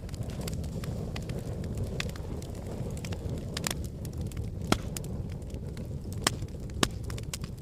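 Wood fire burning in a fireplace: a steady low rush of flames with scattered sharp crackles and pops, three louder pops in the second half.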